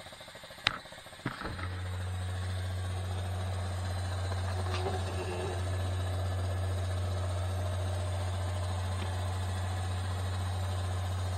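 ABS hydraulic pump motor of a 2006 Ford Five Hundred, switched on by the scan tool during an ABS service bleed. Two clicks come about a second in, then a steady low hum starts suddenly and holds.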